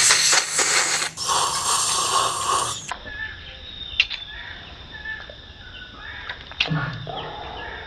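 A man slurping coffee from a glass in two loud, noisy sips over the first three seconds, then faint bird chirps.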